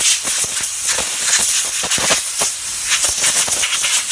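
Compressed air from a blow-gun nozzle hissing loudly against a 10 HP Tecumseh engine's carburetor, blowing out dirt, the hiss fluttering unevenly as it plays over the carburetor's passages.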